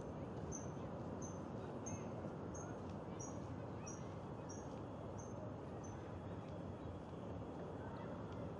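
A bird repeating a short, high chirp about every 0.7 seconds; the calls stop about six seconds in. Under it runs a steady, faint outdoor background noise.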